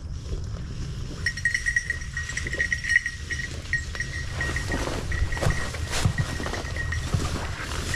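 A bell on a bird dog's collar jingling over and over as the dog moves through the brush, over a steady low rumble of wind on the microphone. A few brief rustles or clicks come in around the middle.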